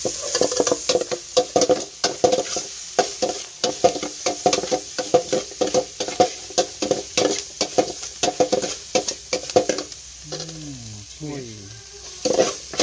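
Metal ladle stirring and scraping in a metal cooking pot: a quick run of clinks, about three a second, each with a short ring from the pot. The stirring stops near the end.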